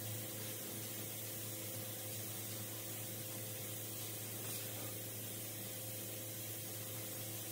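Steady hiss with a low, constant hum: workshop room tone, with no distinct tool or handling sounds standing out.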